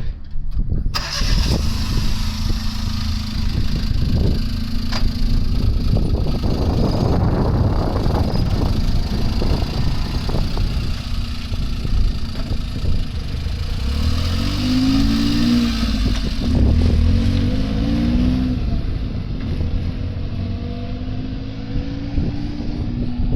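A car engine running as the vehicle is driven, with a steady low rumble. About two-thirds of the way through, the engine note rises and falls a few times.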